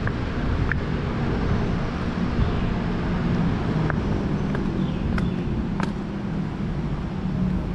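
Steady city traffic rumble from nearby roads, with wind buffeting the microphone. A few faint, light ticks stand out now and then.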